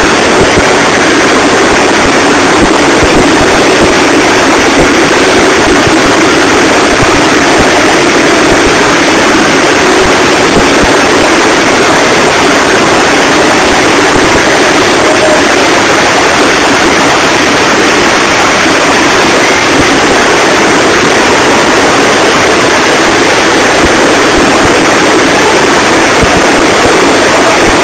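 Helicopter flying low overhead: a loud, steady rotor and engine noise with no letup.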